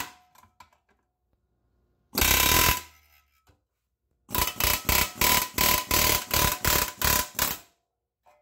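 Pneumatic air hammer with a chisel bit hammering on a control arm's rubber bushing to drive it out of the arm's eye. A short burst at the start and a longer one about two seconds in are followed, about four seconds in, by a quick run of about a dozen short bursts as the trigger is pulsed.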